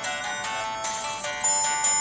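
Samsung SGH-A800 mobile phone playing a ringtone: a synthesized melody of quick notes, several at once, getting louder about one and a half seconds in.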